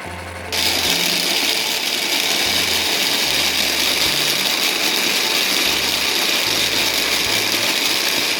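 Toy blender motor running: a loud, steady whirring noise that starts about half a second in and cuts off suddenly at the end, over background music.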